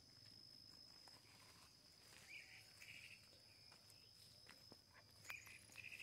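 Near silence: faint rural outdoor ambience with a steady high-pitched insect-like drone, a few short faint chirps and an occasional faint click.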